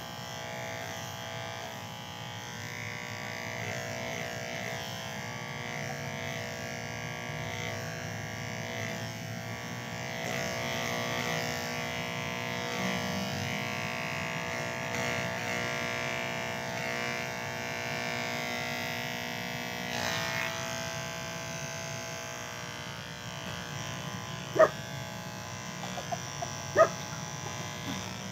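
Electric hair clippers buzzing steadily through a haircut. Near the end, two brief sharp sounds about two seconds apart stand out above the buzz.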